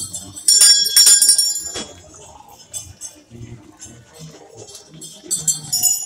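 Two bursts of metallic clashing and jingling, the first about half a second in and lasting just over a second, the second starting near the end, over the voices of a crowd.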